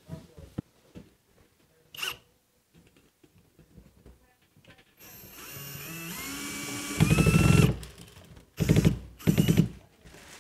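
Hilti 12 V cordless screwdriver driving a screw through a metal vent grille: the motor winds up with a rising whine, then a loud rattling burst as the screw drives home, followed by two short bursts.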